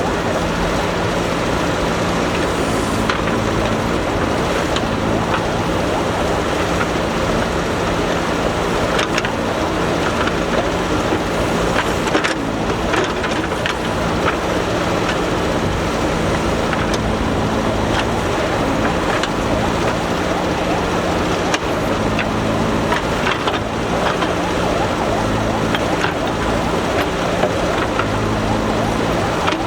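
JCB backhoe loader's diesel engine running steadily under load, with occasional short knocks and clanks from the working machine.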